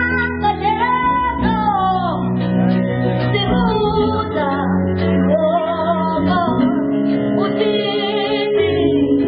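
A child singing a melody into a microphone over a live band of electronic keyboard and electric guitar, with sustained low notes under the voice.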